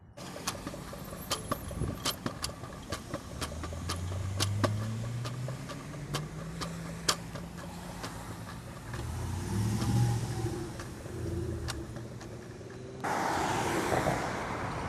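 Ford F-350 Super Duty pickup's V8 driving past, its engine pitch rising as it pulls away, with sharp clicks and rattles over it. After a cut near the end comes louder road traffic noise as a Freightliner Cascadia semi-truck approaches.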